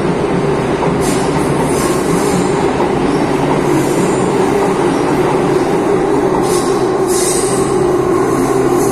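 Madrid Metro train pulling out of the station into the tunnel: a steady, loud rumble of wheels and motors, with a few brief high-pitched bursts from the wheels on the rails.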